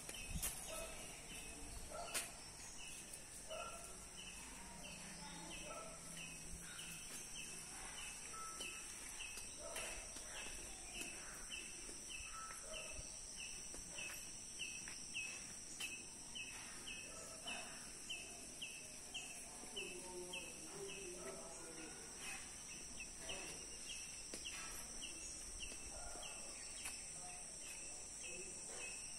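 Faint outdoor garden ambience: a steady high insect drone, a short high call repeated about one and a half times a second, and scattered bird chirps. A light knock about two seconds in.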